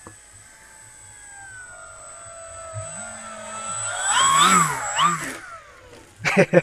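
Electric motor and propeller of a Dynam Primo STOL RC airplane whining in flight. It grows louder towards a low pass about four seconds in, where the pitch rises and falls, then stops abruptly. Near the end come two short loud bursts of another sound.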